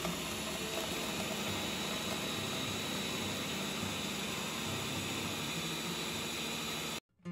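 Ninja blender running steadily as it grinds vanilla wafers into fine crumbs; the sound cuts off suddenly near the end.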